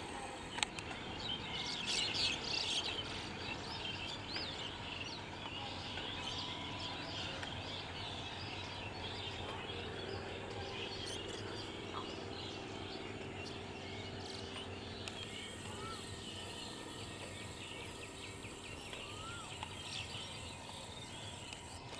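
Birds chirping and calling over a steady background hiss, with a faint low drone for a few seconds midway.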